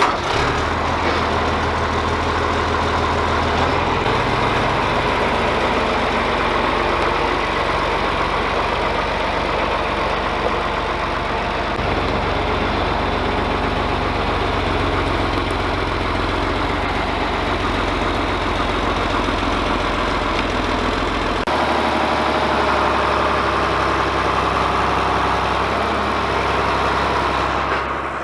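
Tractor engine running steadily, with its engine speed shifting up and down a few times.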